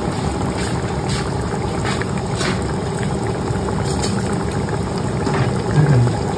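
Mutton curry bubbling steadily in a cooking pot, with a few light knocks and scrapes as cooked rice is spooned in on top.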